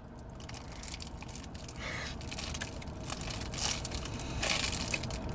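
A person chewing a mouthful of hot beef and bean burrito, with a few short crinkling noises.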